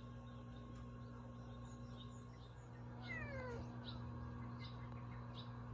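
A domestic cat meowing once, about three seconds in: a single short call that falls in pitch.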